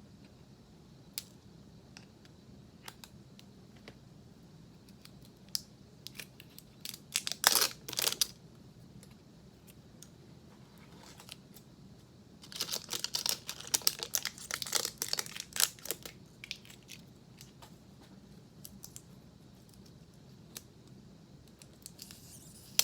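Packaging crinkling and being torn open in two bursts of crackling, about seven seconds in and again from about twelve to sixteen seconds, with a few scattered clicks and rustles between.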